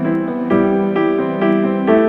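Background music led by piano, gentle and slow, with new notes struck about every half second.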